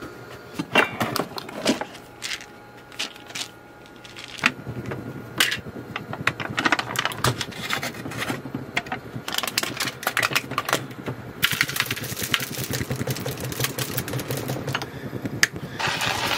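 Clicks and knocks of handling for a few seconds, then coffee beans being ground in a coffee grinder: a steady crunching with a low hum and rapid small clicks. Water starts pouring just at the end.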